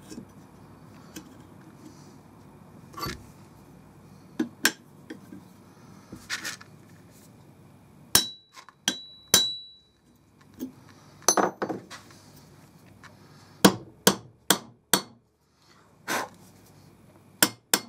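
Hand hammer striking steel: a rivet set and the ends of 1/8-inch rivets being hammered over on a rivet snap held in a vice. Single sharp strikes come a few seconds apart at first, a couple of them leaving a brief high metallic ring, then several quicker strikes near the end.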